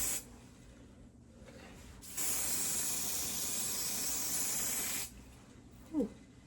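Hairspray can spraying: a brief puff right at the start, then a steady hiss of about three seconds. A short falling squeak follows near the end.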